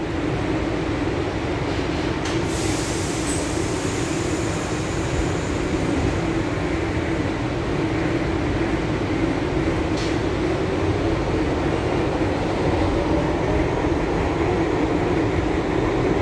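Interior of an R62A subway car as it pulls out of the station and gets under way: a steady rumble of motors and wheels on the rails, with a faint whine rising in pitch about two-thirds of the way through as the train gathers speed, and a couple of short sharp clicks.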